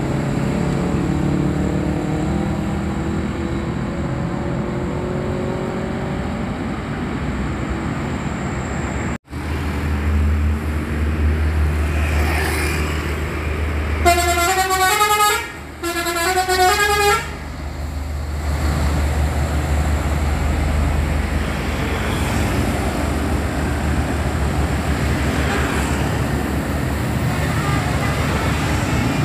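Bus's multi-tone telolet (basuri) horn playing a quick run of stepping notes twice, each about a second and a half long, over steady road traffic and a bus engine running.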